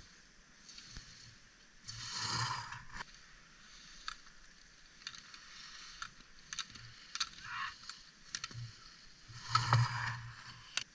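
Slalom skis scraping and carving across hard snow in two rushing passes, the louder one near the end as a racer goes by close. Scattered sharp clacks come from racers striking the gate poles, and near the end the blue gate pole is knocked flat.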